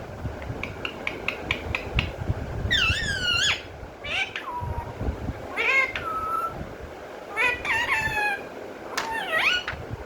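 A pet parrot calling: about five short, shrill calls that rise and fall in pitch, after a quick run of clicks in the first two seconds.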